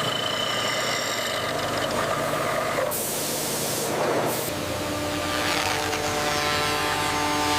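Steady industrial machinery hum with two short hisses of released air, about three and four seconds in.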